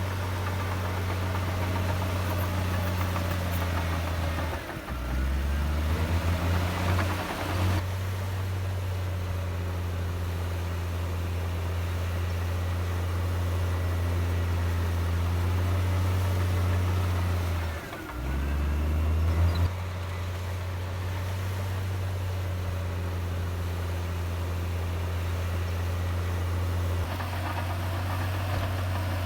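Bulldozer's diesel engine running steadily under load. Its pitch drops sharply twice, about five seconds in and about eighteen seconds in, and each time climbs back up over a couple of seconds.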